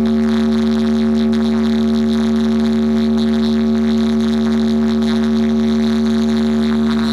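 A DJ box sound system's speaker stack (10 bass, 12 mid) playing one loud, steady drone note with a deep bass hum beneath it, held unchanged throughout, as part of a sound test.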